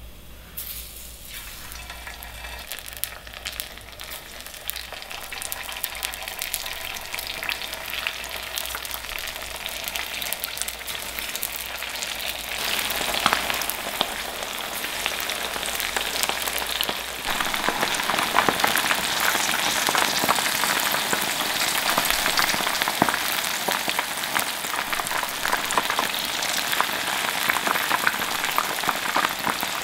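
Battered pork pieces deep-frying in hot oil in a frying pan, a dense sizzling crackle. It starts about half a second in and gets louder, with two jumps, about 12 and 17 seconds in.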